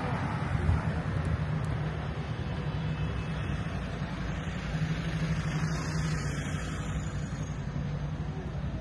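City street traffic: car engines running in slow traffic close by, a steady low engine hum under road noise.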